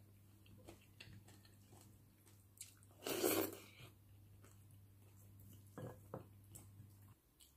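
A person chewing and eating pork and rice, with small mouth clicks and light clicks and knocks throughout. A louder rushing sound lasts about half a second just after three seconds in. A low steady hum runs underneath and cuts off about seven seconds in.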